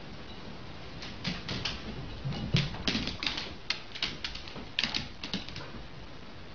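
An irregular run of sharp clicks and taps, some with a dull knock beneath, starting about a second in and stopping shortly before the end.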